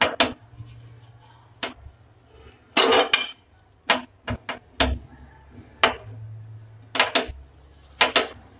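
Steel spoon clinking and scraping against a non-stick frying pan as butter is pushed around the hot pan: about a dozen irregular knocks and short scrapes.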